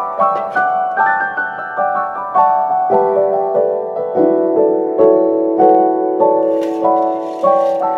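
Background music: solo piano playing a melody of struck notes, about two a second, each ringing out as it fades.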